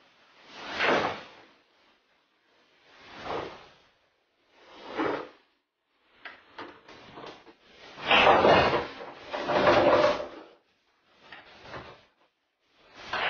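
Pool balls knocking and rolling on a billiard table in a string of separate short bursts, each under a second. The loudest two come about eight and ten seconds in.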